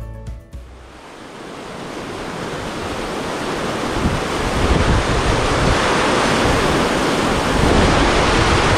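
Water pouring over a dam's spillway gates and churning in the tailwater below: a steady rushing noise that fades up over the first few seconds and then holds.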